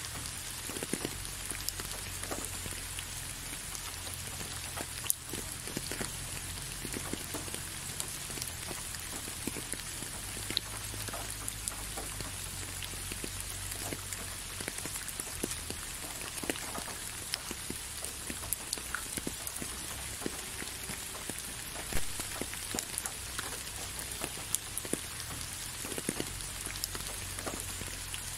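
Steady rain: an even hiss with many separate drops striking close by at irregular intervals.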